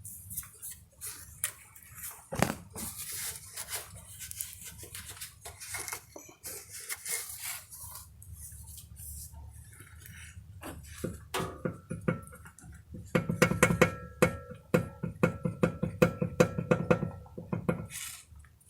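Subaru Forester SG drive shaft knocking: repeated metallic clunks and clicks, scattered at first, then coming faster and more regularly with a ringing tone in the second half. The owner puts the knock down to axial play in the drive shafts.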